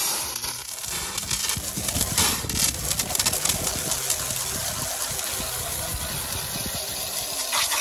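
Harbor Freight portable band sawmill ripping lengthwise through a thick board: a loud, steady rushing hiss of the blade cutting, with the mill's gas engine working under load beneath it. It starts and cuts off abruptly.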